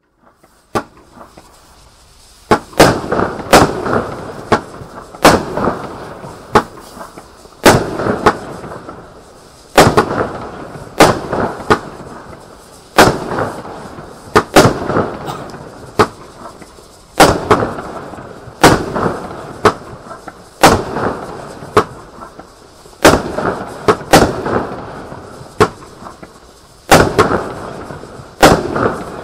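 A 20-shot, 25 mm firework cake firing shot after shot. There is a sharp bang about every second, each followed by a fading crackle from the gold crackling stars.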